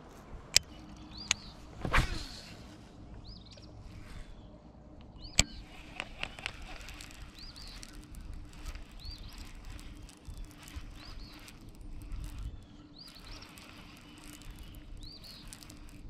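Short high bird chirps repeating about every one to two seconds over outdoor ambience, with a few sharp clicks in the first several seconds, the loudest about two seconds in, and a faint steady low hum underneath.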